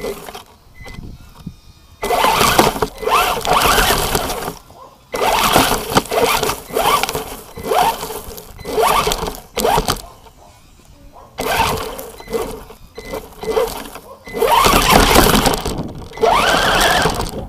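Onboard sound of a ZLL SG116 1:16 4WD RC car driving in several bursts of a few seconds over dry fallen leaves. The tyres crunch and scatter the leaves, and the electric motor winds up and down with the throttle.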